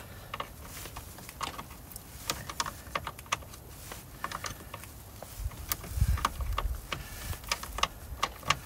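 Irregular metallic clicks and clinks of hand tools as a car battery is being fitted, with a brief low thump about six seconds in.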